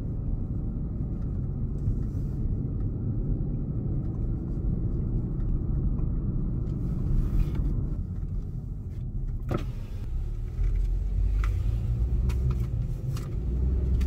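Car driving slowly, heard from inside the cabin: a steady low rumble of engine and tyres on the road. A few short clicks and knocks come in the second half.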